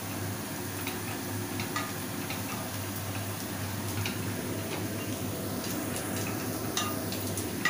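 A spatula clicks lightly and irregularly against a steel pan as chicken pieces are stirred on a gas stove, over a faint steady hiss.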